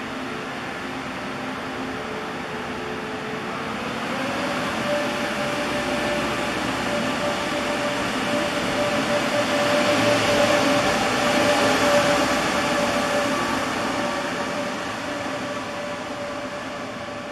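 Locomotive running during freight-train shunting, its hum stepping up in pitch about four seconds in as it is throttled up. It grows louder toward a peak just past the middle, then eases off.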